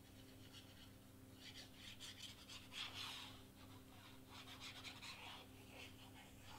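Faint, irregular rustling and rubbing of cardstock pieces being handled and pressed, starting about a second and a half in, over a steady low hum.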